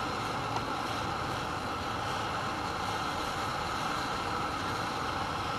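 Handheld gas torch burning with a steady hiss, its flame melting potassium chlorate on top of a thermite mixture.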